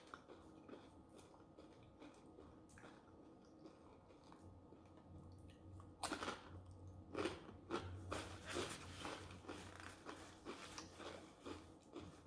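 Close-up chewing and crunching of corn chips with chili. Quiet for about the first half, then a bite about six seconds in, followed by steady crunchy chewing.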